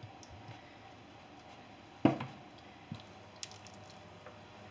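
Faint kitchen handling as cooking oil is poured into a nonstick frying pan, with one sharp knock about two seconds in and a couple of small clicks after it.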